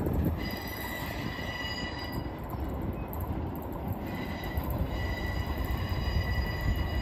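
Equipment train's steel wheels squealing on a curve in several steady high tones over a low rumble of the cars rolling. The squeal starts about half a second in, drops out for a couple of seconds midway, and returns.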